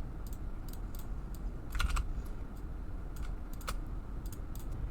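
Irregular clicking of a computer keyboard and mouse while drawing on a computer, with a louder cluster of clicks about two seconds in, over a low hum.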